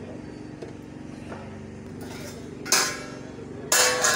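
Steel pot lids being handled and lifted off a large cooking pot: two metallic clanks with ringing, the second and louder one near the end, over a steady low hum.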